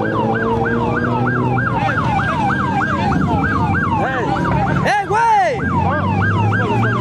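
Police car siren in fast yelp mode, its pitch sweeping over and over about three times a second, with a few slower rising-and-falling tones from another siren or horn about four to five seconds in. Idling engines hum underneath.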